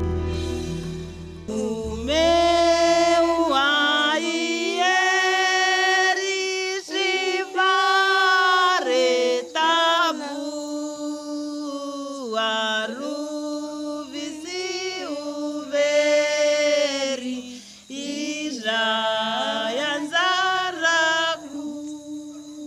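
A woman's voice singing unaccompanied in slow, long held notes, with short breaks between phrases.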